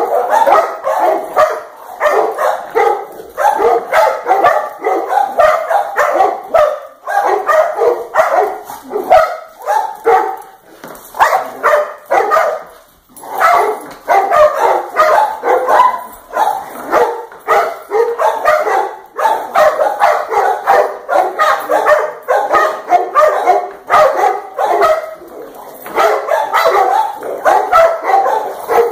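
Dogs barking and yipping in rough play, a rapid run of short barks almost without let-up, with a brief break about halfway through.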